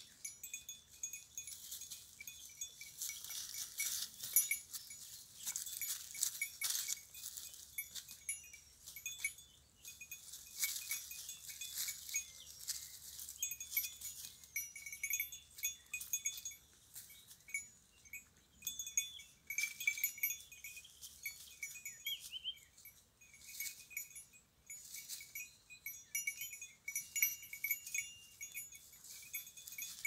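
Goats browsing through dry brush: repeated rustling, crackling and snapping of twigs and leaves as they pull at the shrubs and push through the undergrowth, with faint short high-pitched tones throughout.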